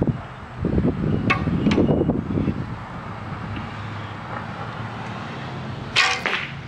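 Shots from a vintage Ben Pearson Javelina recurve bow: a release thump right at the start and another sharp bowstring snap with a short ring about six seconds in. Between them there is a stretch of low buffeting about a second in, over a steady low background hum.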